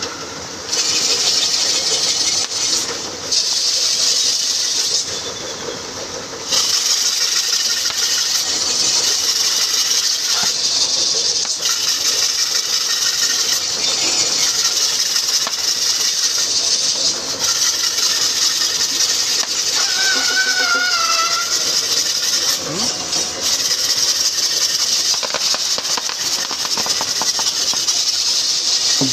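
A pair of racing bulls galloping round a circular track, towing a long wooden beam on a wheeled iron frame, with a continuous high hissing rattle that dips briefly in the first few seconds.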